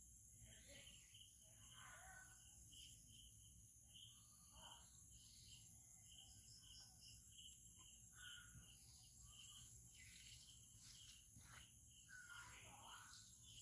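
Faint insect and bird ambience: a steady high-pitched insect drone with a chirp repeating about two to three times a second, and occasional bird calls.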